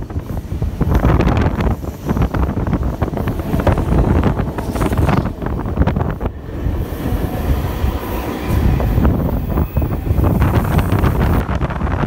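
Passenger train running at speed, heard from an open window of a railcar: a loud, steady rumble of wheels on the rails, broken by rapid clicks and rattles.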